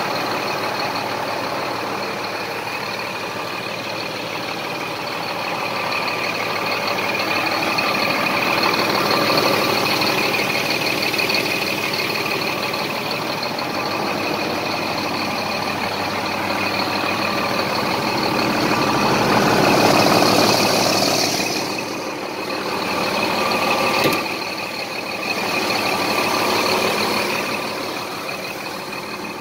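Scania G420 tractor unit's six-cylinder diesel engine idling steadily, with a high steady whine over it. A single sharp knock about two-thirds of the way in.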